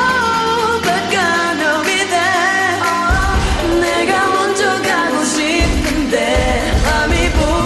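Slowed-down, reverb-heavy K-pop song: a sung vocal line over a pop backing, with a deep bass that drops out and comes back several times.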